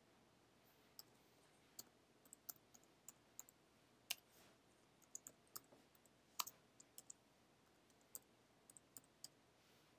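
Faint, irregular key clicks of typing on a computer keyboard, spaced out one or two at a time.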